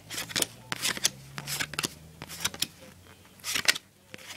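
Trading cards being flipped and slid against one another in the hand: a string of short flicks and rustles, with a louder rustle about three and a half seconds in.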